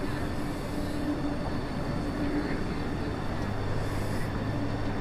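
Berlin U-Bahn train running across an elevated bridge viaduct: a steady rumble with a constant low hum, a deeper hum joining about three seconds in.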